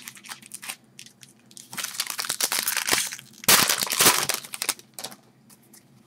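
Foil trading-card pack wrapper crinkling as it is torn open and handled, in two bursts of about a second each, the second louder.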